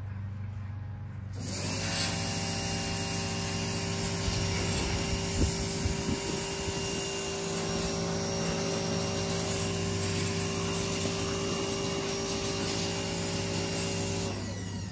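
A motor-driven machine starts up about a second and a half in, runs at a steady pitch with a hum and hiss, and winds down shortly before the end.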